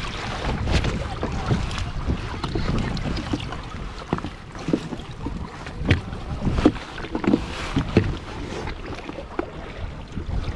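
Wind rumbling on the microphone and water splashing around a sit-on-top kayak, with a series of short knocks and clunks as a Hobie MirageDrive pedal drive is pulled up out of its hull well.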